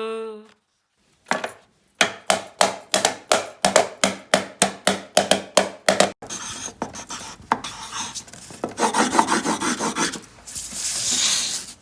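A sheet of paper handled to make sound effects: first a quick run of sharp strokes, about four a second, then rubbing and scratching of the paper, ending in a hissing swish.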